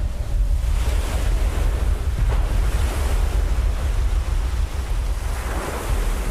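Large barreling ocean wave breaking: a deep, steady rumble with the hiss of white water, swelling near the end.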